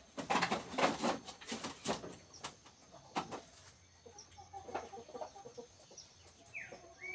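Scuffling and rustling, busiest in the first two seconds, as a goat is held still, with chickens clucking in the background and a short bird chirp near the end.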